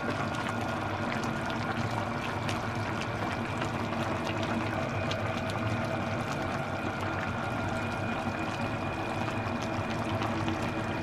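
Coconut-milk seafood stew simmering in a pan, bubbling with a steady hiss and many small irregular pops, over a faint steady hum.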